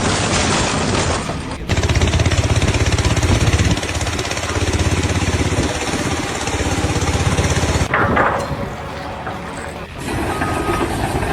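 Construction-site machinery running loudly in a few short clips that cut abruptly into one another, one with a fast rattling texture. Near the end a reversing alarm beeps at an even pace.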